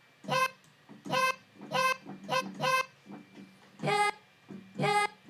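A short pitched sample played in separate stabs from a software sampler: about seven brief, reedy notes in an uneven rhythm. The last two notes are pitched lower.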